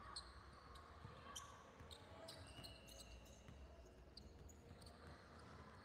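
Faint sounds of basketball play on an indoor hardwood court: the ball bouncing, with scattered short, sharp squeaks from sneakers.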